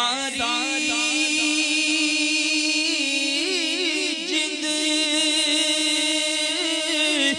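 A man's voice singing a Punjabi naat into a microphone, drawing out one long held note with wavering melismatic ornaments through the middle of it.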